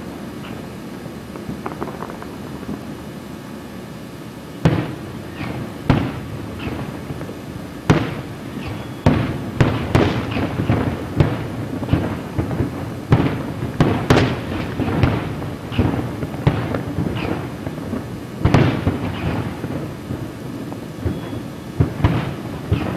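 Aerial fireworks shells bursting: after a few quieter seconds, sharp booms start about five seconds in and follow one another in quick succession, each trailing off in a rolling echo, with a short lull before another cluster near the end.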